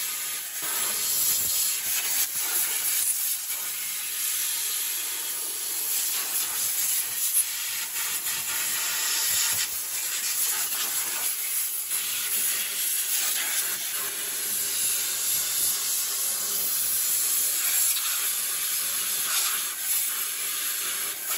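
Compressed-air blow gun with a long wand blasting leaked hydraulic oil off a hydraulic valve block: a steady hiss that swells and dips slightly as the nozzle moves, then cuts off suddenly at the end.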